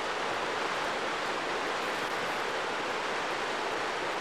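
Steady rushing of shallow river water flowing over rocks and riffles.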